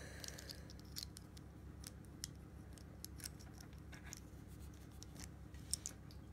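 Small hard plastic parts of a Kinder Joy toy clicking and tapping as fingers handle them and fit them together, a faint, irregular series of light clicks.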